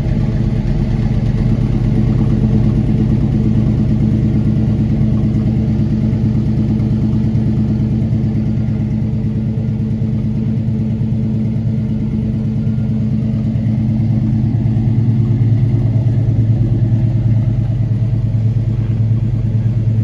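A 1963 Chevy II Nova SS's 355 small-block V8, with long-tube headers and two Flowmaster mufflers, idling steadily with a muffled, drowned-out exhaust sound.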